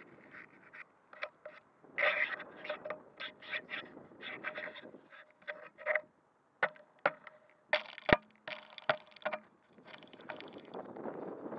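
Handling noise from a handheld RunCam 2 action camera being carried while walking: irregular clicks and scrapes of fingers and the casing, with a sharp knock about eight seconds in.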